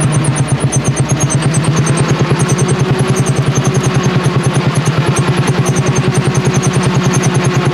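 Lanz Bulldog tractor's single-cylinder hot-bulb two-stroke engine running steadily, with an even beat of about ten firings a second.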